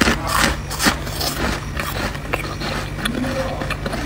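Crunching of freezer frost: irregular crisp crunches and clicks, densest in the first second and sparser after, over a steady low hum.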